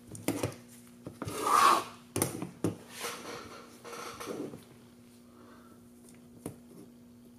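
Small hardware and tools being handled on a workbench while a frame standoff is fitted with small screws: scattered light clicks and knocks, with one louder sound lasting about half a second, a second and a half in, over a faint steady hum.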